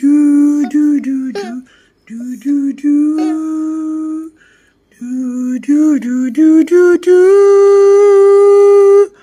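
A person singing a wordless lullaby on "do, do, do" syllables: a run of short, gliding notes, then one long held note near the end that breaks off just before the close.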